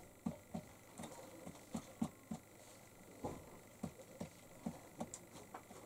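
Faint, irregular light taps, a dozen or so spread unevenly: a young white pigeon pecking at the board ledge of a cardboard box.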